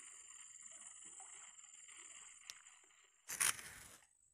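Faint, steady high-pitched buzzing of an insect chorus, with a sharp click about two and a half seconds in, then a short, loud crunching rustle a little after three seconds.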